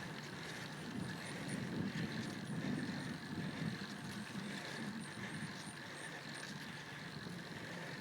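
Steady low rumble of wind and road noise from a bicycle climbing at an easy pace, swelling slightly about two seconds in.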